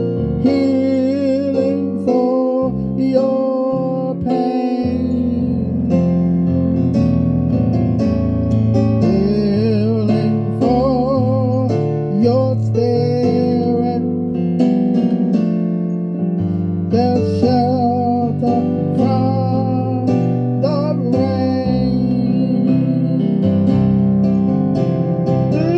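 Music: piano accompaniment under a sung melody, the held notes wavering with vibrato.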